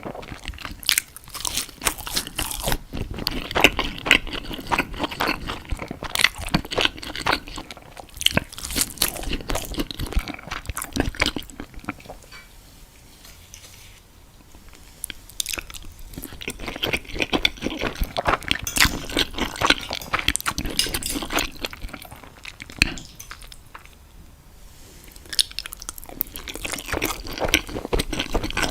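Close-miked eating of a meal of crispy chicken nuggets and spaghetti bolognese: crunching bites and chewing, dense and crackly, easing off twice into quieter pauses, once around the middle and briefly near the end.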